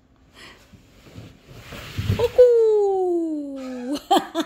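A drawn-out exclamation, "어구~", from a person's voice, falling steadily in pitch for about a second and a half. A soft rustle and a low thump come just before it.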